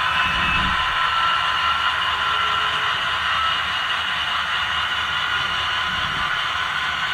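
HO scale freight train of covered hopper cars rolling past close by: a steady whir of small metal wheels running on the rails.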